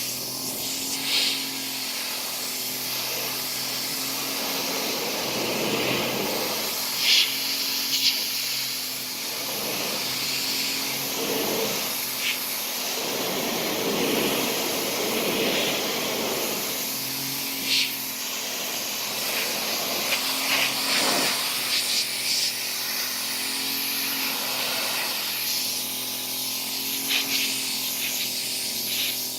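Pressure washer running with a steady hum, its water jet hissing and swelling in waves as it blasts crud off the wall of a shed.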